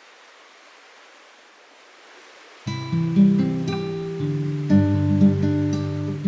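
Faint steady hiss, then background music on plucked acoustic guitar starts suddenly a little under halfway in.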